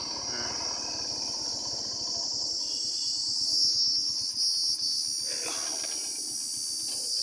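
Motorcycle engine running at low speed, a fast even low pulsing, under a steady high-pitched hiss.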